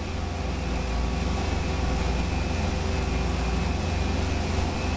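Twin-turbocharged 408 cubic-inch stroker LS V8, built on a cast-iron 6.0L block, idling steadily on the engine dyno: a well-behaved, even idle.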